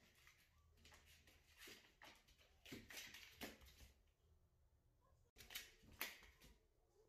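Faint scuffling and soft knocks of a kitten's paws as it scampers and pounces on a hard floor, coming in irregular bursts, loudest near the middle and again near the end.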